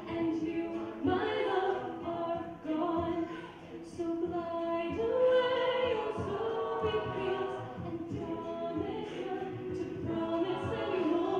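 An a cappella vocal group singing in harmony, several voices holding and shifting chords with no instruments.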